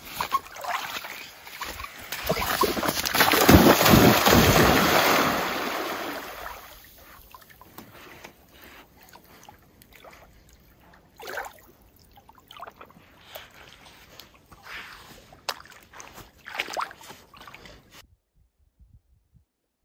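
Golden retriever splashing into a lake: a few seconds of heavy splashing, then quieter water sloshing with scattered small splashes as it swims.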